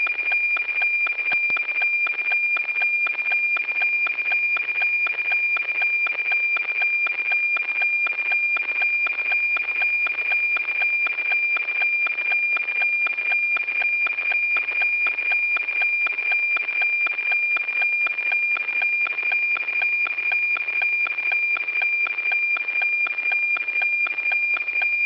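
NOAA-19 weather satellite APT signal as received by radio: a steady high tone with a fast, even tick-tock beat, two image lines a second being sent down.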